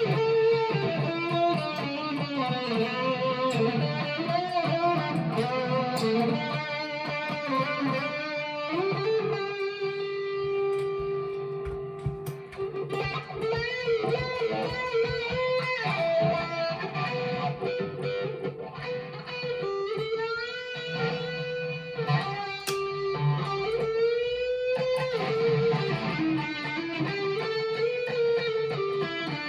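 Harley Benton TE-90 FLT electric guitar played through an amp on its bridge pickup: single-note lines and chords with string bends and vibrato, a few notes held. The player finds it out of tune and rattly.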